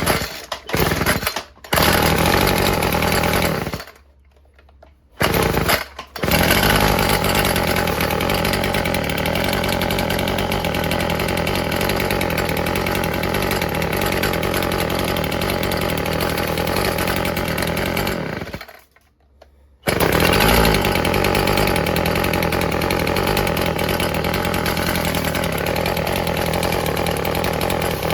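Stihl FS36 string trimmer's small two-stroke engine firing in short bursts and dying, then catching and running steadily for about twelve seconds, cutting out near the middle and starting again to run on steadily; the owner suspects it is running a little rich.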